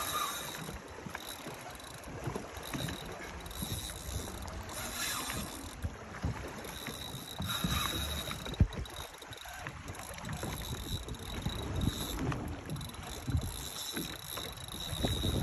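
Wind buffeting the microphone over water lapping against a small boat's hull, with a faint steady high whine throughout and one sharp knock about eight and a half seconds in.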